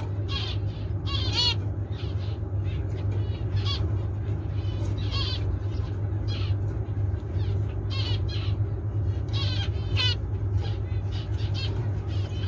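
Zebra finches calling: many short calls come one after another at irregular spacing, over a steady low hum.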